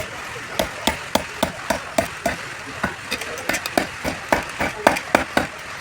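Hammer driving nails into a wooden power-loom fitting (a pagadi billa), a run of sharp blows at about three a second, to tighten the loose piece.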